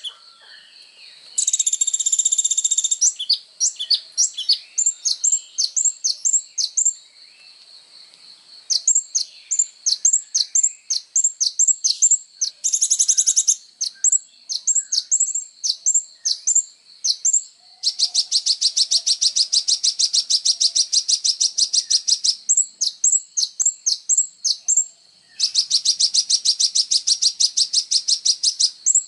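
A sunbird of the kind sold in Indonesia as 'kolibri ninja' singing energetically: strings of sharp, high chirps, broken by two long, fast buzzing trills, one in the middle and one near the end.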